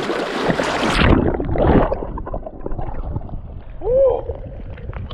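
Seawater splashing and sloshing around a GoPro as a swimmer wades into the cold sea, turning suddenly muffled about a second in. A man gives a short cry about four seconds in.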